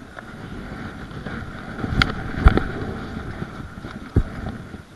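Wind buffeting the camera microphone with rustling from movement, broken by sharp knocks and bumps about two, two and a half and four seconds in.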